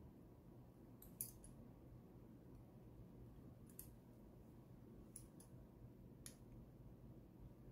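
Faint, sharp clicks of pliers gripping and bending a 0.8 mm wire lingual spring, about six clicks spread out, the loudest about a second in.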